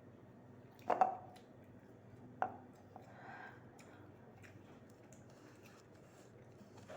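Close-up eating sounds: two sharp clicks, the first about a second in and the second about two and a half seconds in, then a short soft rustling sound.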